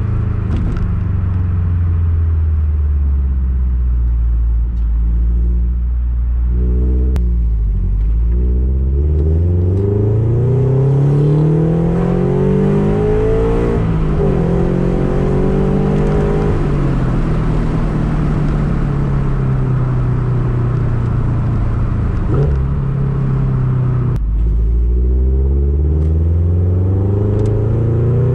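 A Subaru BRZ / Toyota 86 flat-four boxer engine, running an Open Flash Tablet tune, heard from inside the cabin. The engine note climbs steadily under acceleration, drops back, holds a steady drone, then drops sharply near the end and climbs again.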